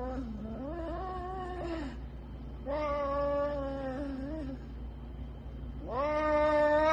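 A cat yowling: several long, drawn-out wailing meows, each lasting a second or two, with short pauses between them.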